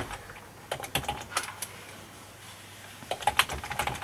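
Typing on a computer keyboard: a short run of keystrokes about a second in, a pause, then another run near the end.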